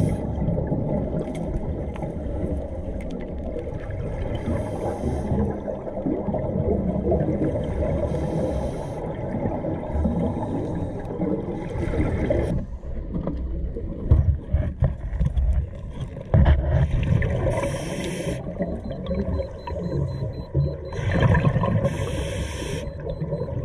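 Scuba diver breathing through a regulator underwater: a burst of exhaled bubbles every three to four seconds over a steady low underwater rumble.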